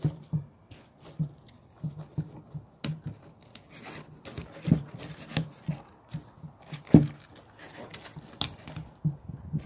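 Dry lower leaves of a pineapple crown being torn and snapped off by hand, a run of irregular tearing snaps and crackles, loudest about seven seconds in. The leaves are being stripped to bare the base of the crown for rooting.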